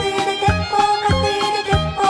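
Instrumental pop music with a steady beat, a bass line and sustained melody notes above it.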